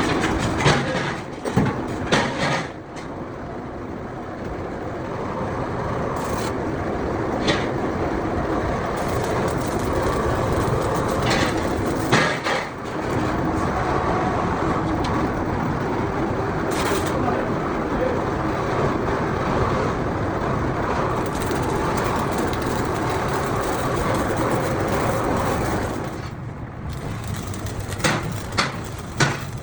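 Steady workshop machine noise with a few sharp metallic knocks, briefly quieter about three seconds in and again near the end.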